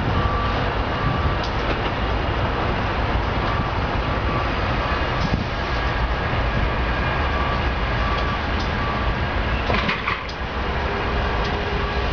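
A consist of BNSF diesel locomotives moving slowly through the yard, a steady low rumble. A reversing beeper beeps repeatedly throughout, and there is a short rattle of clanks about ten seconds in.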